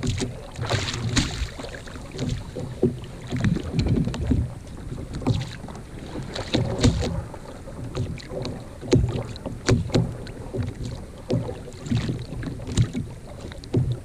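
Water slapping and knocking against a sit-on-top kayak's plastic hull in a light chop: irregular low thumps, some with a sharper click, with wind on the microphone.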